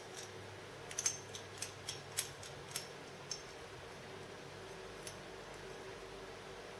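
Light metallic clicks and taps of a steel nut and washer being handled and fitted on the freshly machined compound swivel: a quick run of about nine clicks between one and three and a half seconds in, then one more about five seconds in, over a faint steady hum.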